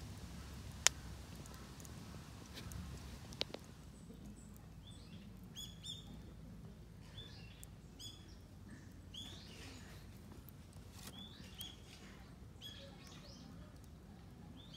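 Wood fire burning in a small folding metal stove, crackling with two sharp pops in the first few seconds. From about four seconds in, a small bird chirps repeatedly in short calls over the low sound of the fire.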